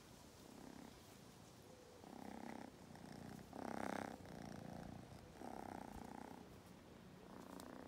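Kitten purring faintly, in about five swells of half a second to a second each, the second one the loudest.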